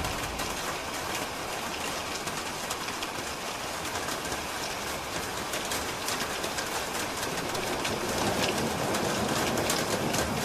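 Steady rain falling on a roof: a constant hiss with many sharp taps of single drops, swelling a little about eight seconds in.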